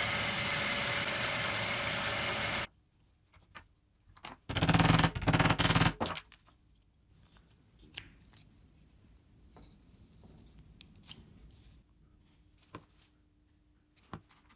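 Drill press running and boring through a small wooden piece into a wooden block, a steady machine sound that stops suddenly under three seconds in. A louder, rattling burst of about a second and a half follows, then only light clicks of wooden pieces being handled.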